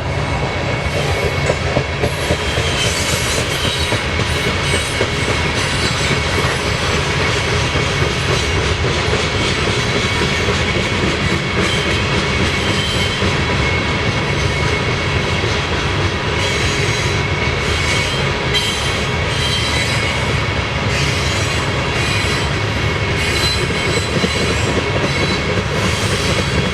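Freight train of grain cars rolling past steadily, steel wheels running on the rails, with a faint high wheel squeal running through it.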